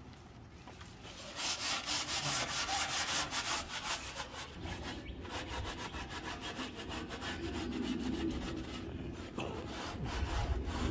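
Steel wool pad scrubbing the soapy inside of a steel offset smoker's cooking chamber: rapid back-and-forth rasping strokes, starting about a second and a half in. It is scouring the manufacturing coating out of a new smoker.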